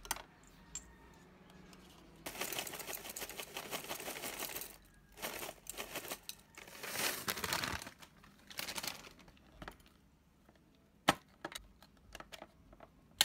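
Clear plastic bag crinkling as cereal flakes are shaken out of it into a glass bowl, in a few bursts. Near the end, several sharp clicks as the snap-lock latches of a plastic food container's lid are unclipped.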